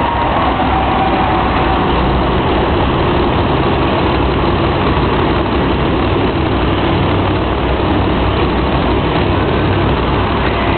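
Monster truck engines running loud and steady: a dense engine noise with a deep low rumble and no breaks.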